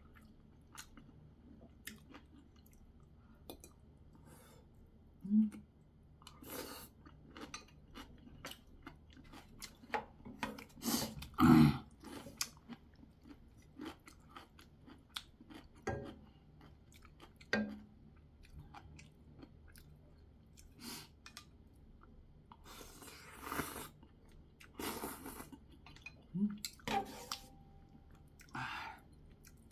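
A person eating ramyeon noodles and dumplings close to the microphone: chewing and wet mouth sounds with scattered sharp clicks and a few louder short bursts, the loudest about eleven seconds in.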